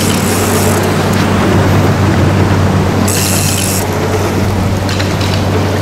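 Boat engine running steadily under wind and water noise on the hull, with a brief high hiss twice, near the start and about three seconds in.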